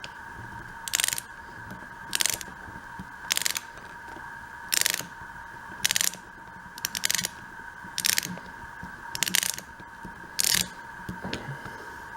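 Small screwdriver working at a screw in a Flip video camera's plastic case: a run of about ten short ratcheting bursts, roughly one a second.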